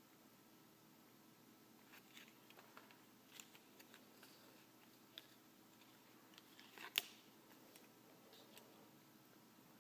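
Faint handling of a Kinder Joy toy's card and plastic pieces: scattered soft rustles and small clicks, with one sharper click about seven seconds in.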